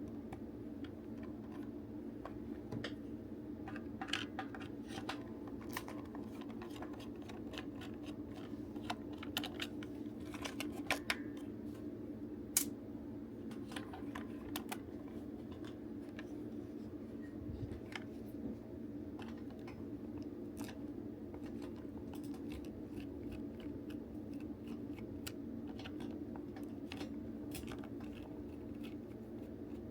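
Scattered small clicks and taps of plastic toy parts and small tools being handled during disassembly of a plastic toy transformation belt, over a steady low hum.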